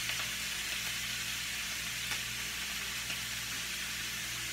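Ground meat sizzling steadily in a skillet on the stove, with a few light clicks of a spatula scraping meat off a mesh strainer back into the pan.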